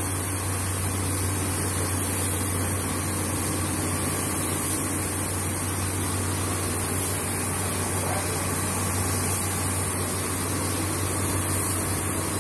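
A machine running steadily: a constant low hum with an even hiss over it, unchanging throughout.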